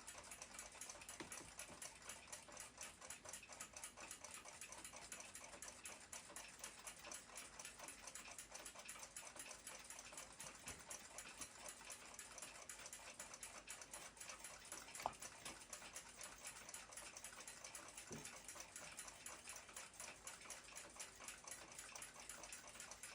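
Junghans W146 ship's clock movement running after restoration, its platform escapement ticking quickly and evenly. The ticking is faint, with one sharper click about fifteen seconds in.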